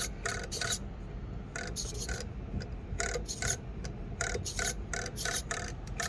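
Axial SCX24 mini RC crawler working over pea gravel: short, irregular rasping and crunching bursts, several a second.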